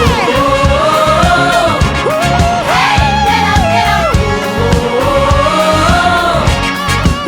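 Pop song music with sustained wordless vocals held and sliding in pitch over a steady beat.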